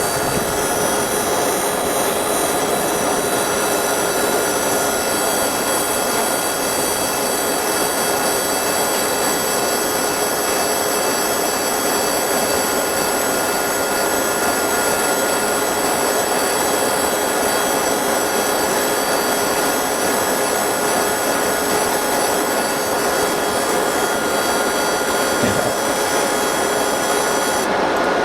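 Laser engraving and separating machine running as it engraves a logo on phone back glass: a steady noisy hum laced with many high, even whining tones, which cuts off suddenly near the end as the job finishes.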